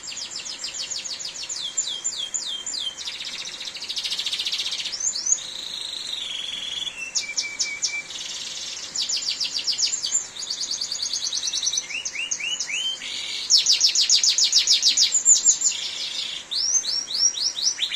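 Domestic canary singing a long, varied song: fast trills of repeated notes and falling sweeps, switching to a new phrase every second or two. A faint steady rain hiss runs underneath.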